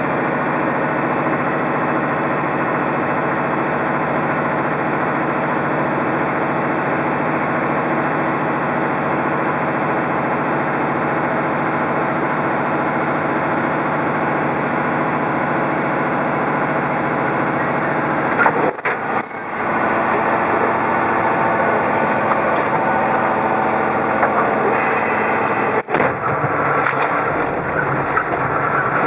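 A vehicle engine running steadily, with a few short clicks about two-thirds of the way through and again near the end.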